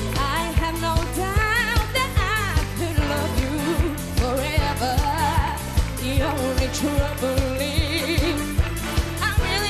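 Pop song: a woman's voice singing wavering runs with vibrato over a steady drum beat at about two beats a second and a bass line.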